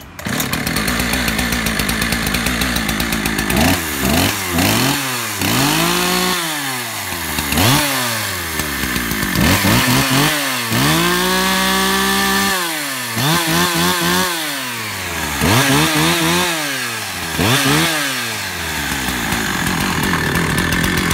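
Husqvarna 365 two-stroke chainsaw that has just started on the first pull. It idles for a few seconds, then is revved up and back down about ten times, once held at high revs for about two seconds in the middle, before settling back to idle near the end.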